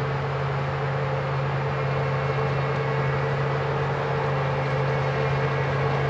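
Claas Lexion 770 combine harvester with a Geringhoff corn header running steadily: a constant engine drone with a steady hum above it, growing slowly louder as the machine comes closer.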